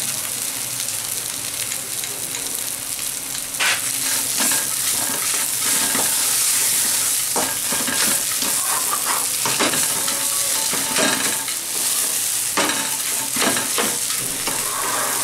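Mashed potato filling sizzling steadily in oil in a kadai as it is fried down. A wooden spatula stirs and scrapes it against the pan in repeated strokes from about four seconds in.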